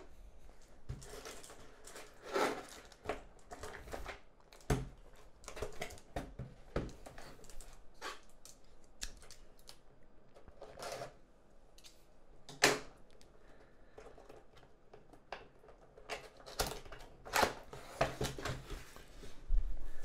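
A cardboard keyboard box being slit open and its flaps opened by hand: irregular scrapes, taps and knocks of cardboard, with a few sharper knocks in the second half.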